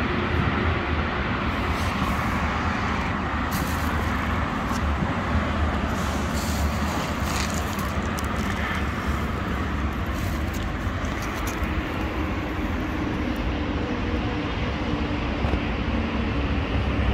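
Steady low rumble of road traffic from a nearby city street. From about two seconds in to past the middle, scattered light clicks and rustles sound over it.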